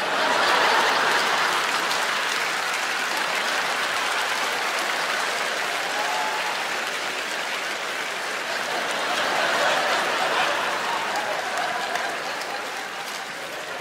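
Studio audience applauding and laughing after a punchline, the clapping swelling once more partway through and dying away near the end.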